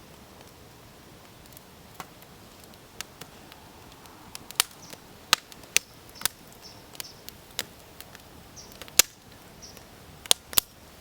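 Wood fire crackling in a fire pit, with irregular sharp pops and snaps, a few of them loud, over a low steady hiss.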